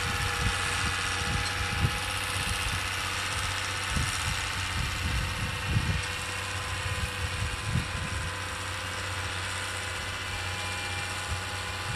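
Tractor engine running steadily under load as it pulls a tillage implement across a ploughed field, a constant low drone, with irregular low rumbling thumps over it.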